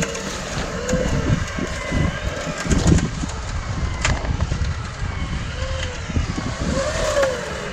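Off-road vehicle driving slowly through deep wet snow and meltwater, heard from inside the cabin as steady engine and body rumble with uneven low thumps. A few short rising-and-falling whines come and go over it.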